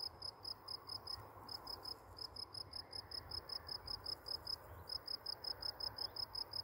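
A cricket chirping in a steady run of short, high-pitched pulses, about six a second, with a few brief breaks.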